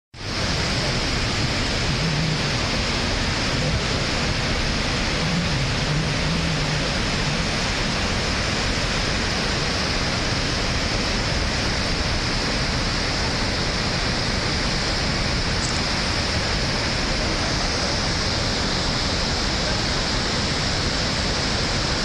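Broad, low waterfall and the white-water rapids below it: a steady, unbroken rush of water crashing over rock ledges.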